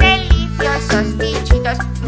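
Upbeat children's song music, instrumental, with a bright melody over a drum beat and bass.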